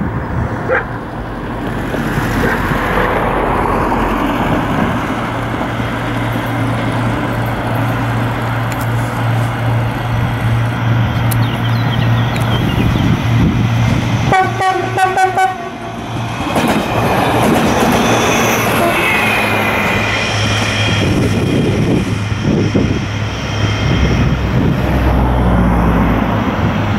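HŽPP 7121-series diesel multiple unit running as it approaches, its engine humming steadily under road and track noise. About halfway through it gives a horn blast of about a second and a half.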